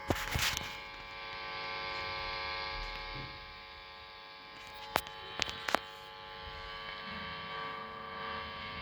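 Marshall DSL1HR valve amp head's idle noise: a steady mains hum and buzz with many overtones and some hiss, with no guitar being played. A few sharp clicks break in just after the start and again about five seconds in.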